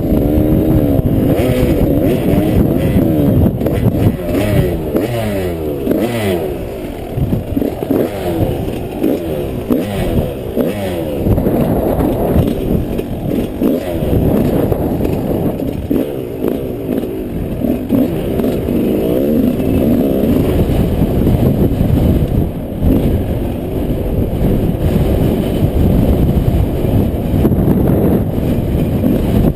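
Yamaha 125 off-road motorcycle engine running under throttle as it is ridden, its pitch climbing and dropping again many times as it revs up and eases off.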